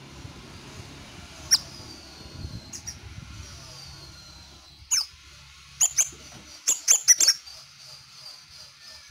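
Caged scarlet minivet (sepah raja) calling. Thin high whistles slide downward twice in the first half, then a run of sharp, quick chirps comes from about five seconds in, loudest around seven seconds.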